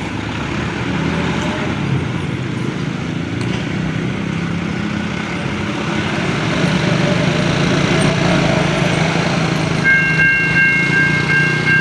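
Steady rumble of road traffic idling and moving at a railway level crossing. About ten seconds in, a high electronic warning tone of three notes starts up with short regular breaks, the crossing alarm signalling that a train is approaching.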